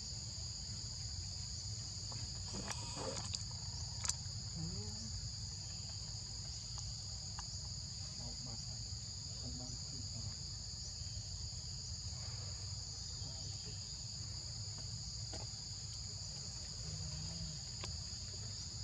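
Steady high-pitched insect chorus holding two even pitches, over a low steady rumble. A few faint clicks, with one sharp click about four seconds in.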